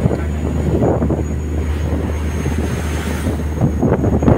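Fishing trawler's engine running with a steady low hum, under gusts of wind on the microphone and the rush of rough sea, which swells about a second in and again near the end.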